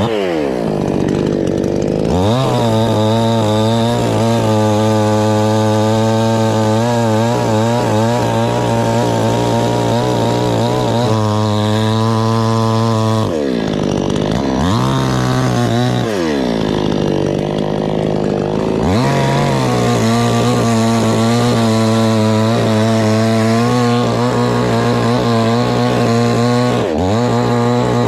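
Two-stroke chainsaw held at high revs cutting coconut wood, easing off to a lower pitch and revving back up a few times (about 13, 16 and 27 seconds in).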